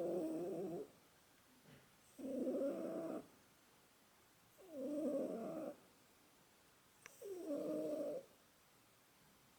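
Domestic cat snoring in its sleep: four snores about two and a half seconds apart, each lasting about a second, with quiet between them.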